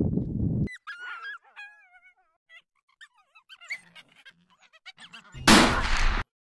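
A rushing noise cuts off abruptly just under a second in. A wild canid then gives a run of high, sliding yelps and whines, with a few fainter calls after. About five and a half seconds in comes a loud, sudden rifle shot, the loudest sound here.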